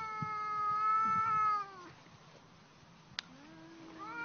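Domestic cats squaring off, yowling in threat: one long, steady yowl that sags in pitch and fades after about two seconds, a short pause, then another yowl rising near the end as they go for each other.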